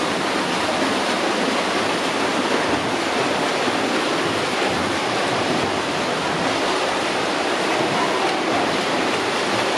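Steady splashing and churning water from swimmers racing freestyle in a pool.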